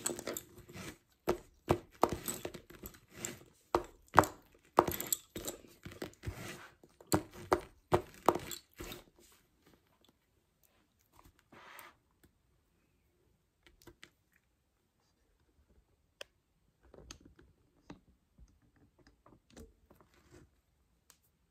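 Lace bobbins knocking and clicking against one another as pairs are worked on a bobbin-lace pillow. A quick, uneven run of sharp clicks lasts about nine seconds, then thins out to scattered soft clicks.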